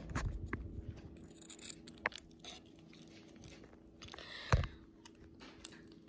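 Faint scraping and clicking of a plastic spoon in a plastic bowl of Cookie Crisp cereal, with one louder thump about four and a half seconds in.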